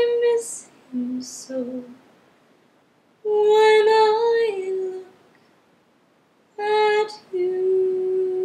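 Solo female voice singing a cappella in slow phrases: long sustained notes separated by short pauses, one long note sliding down at its end, and a final note held steady near the end.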